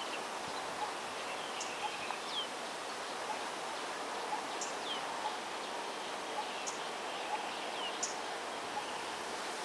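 Small birds calling, short high chirps and brief falling notes repeating every two to three seconds, over a steady outdoor hiss of park ambience.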